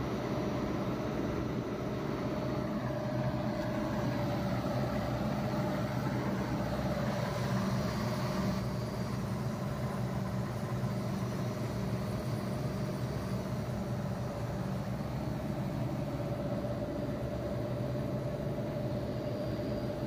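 Large packaged air-conditioning unit running, its compressor and condenser fans giving a steady hum with a constant whine above it, while it is charged with refrigerant from cylinders.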